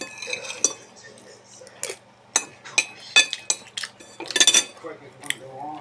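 Cutlery clinking against a dish while eating noodles: a string of sharp, ringing clinks, thickest about four and a half seconds in, over a faint low hum.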